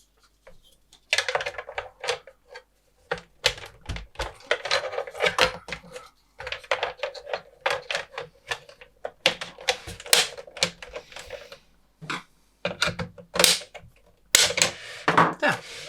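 Quick, irregular clicks, taps and knocks of plastic parts as the carrying handle is fitted onto the plastic case of a Tektronix TDS 210 oscilloscope, coming in bursts with short pauses.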